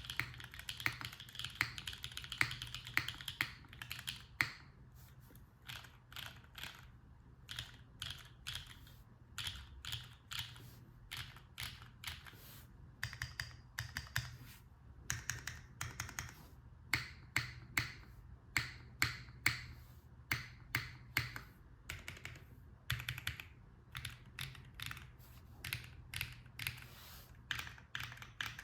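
Typing on a Replihaku mechanical keyboard with Chilkey Dopamine Blue switches, an aluminium plate, GMK keycaps and no foam. A quick run of keystrokes comes first, then slower, uneven keystrokes with short pauses between them.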